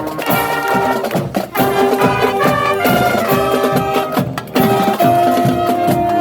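High school marching band playing: brass instruments holding and changing notes over a steady drum-line beat.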